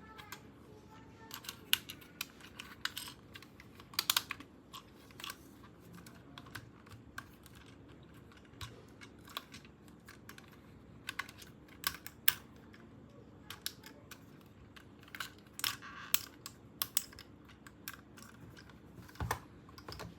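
Hard plastic toy pieces and packaging being handled: irregular clicks, taps and short crackles, with a few louder snaps.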